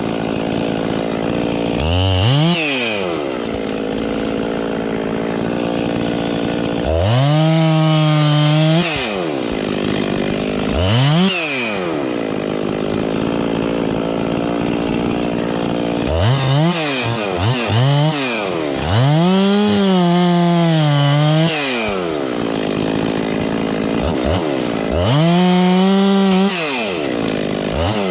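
Husqvarna 257 two-stroke chainsaw with a 28-inch bar idling, with several quick throttle blips and three held full-throttle runs of about two seconds each as it bucks a downed tree.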